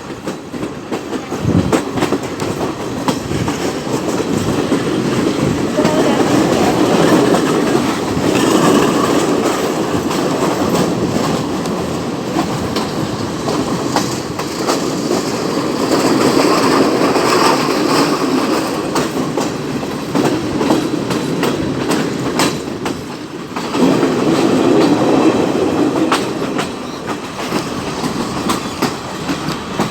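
Train running along the track, its wheels clattering over the rail joints with a steady rumble that swells and eases several times.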